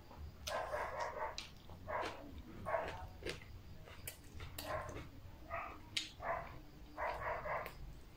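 Several dogs barking repeatedly, a bark or a short run of barks roughly every second.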